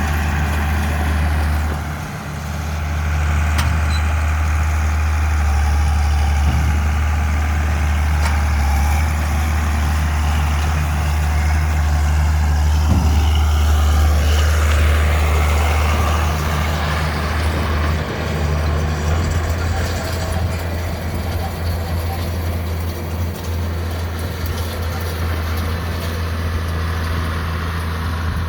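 Tractor engine running steadily, a deep continuous drone, while baling hay.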